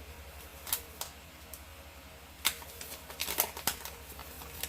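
Scattered clicks and crinkles of packaging and a plastic wall outlet being handled, with a quicker run of clicks about three seconds in.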